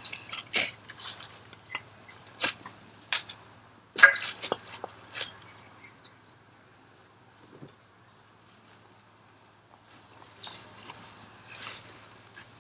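Steady high-pitched insect chirring with scattered sharp clicks and knocks over the first five seconds, the loudest about four seconds in, and another knock near the end.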